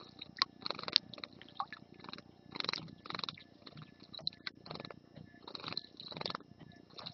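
European goldfinch bathing in a shallow stone bird bath, beating its wings in the water: irregular bursts of splashing and fluttering, several a second at times, with short pauses between.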